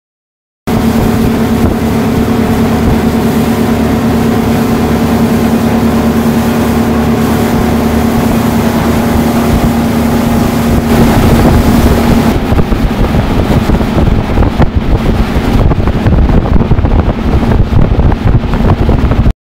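Passenger ferry's engines running with a loud, steady droning hum, heard inside the cabin. About twelve seconds in, the hum gives way to a rougher rushing noise, with wind buffeting the microphone.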